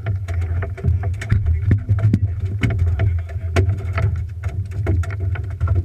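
A fishing boat under way: a steady low rumble with frequent sharp knocks and slaps all through.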